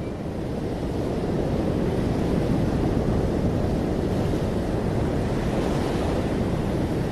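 Rough sea surf breaking in steady rushing waves, with wind on the microphone. It grows louder over the first second, then holds steady.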